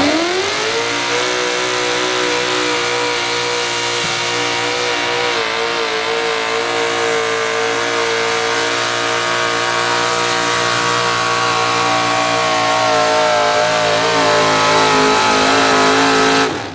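Ford pickup's engine at full throttle pulling a sled: the revs climb in the first second, then hold steady and high, dipping slightly near the end.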